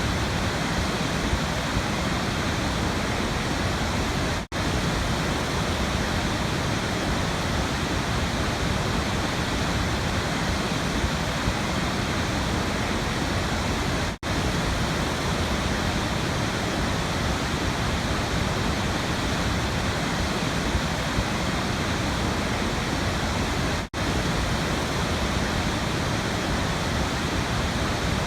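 Waterfall rushing, a steady even roar of falling water, broken three times by a brief dropout about ten seconds apart.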